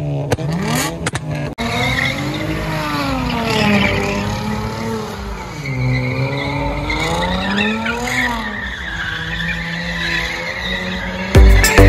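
A car engine revving up and down in slow swells, about every two seconds, with tyres squealing as the car drifts. Loud music with a heavy beat cuts in near the end.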